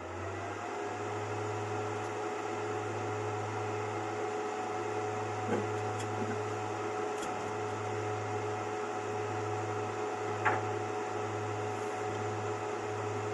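Swipower inverter switched on: its cooling fan spins up with a rising whirr, then runs steadily over a low, pulsing electrical hum. The fan has just had its bearing oiled to cure a bad noise, and it now sounds normal. A few faint clicks are heard along the way.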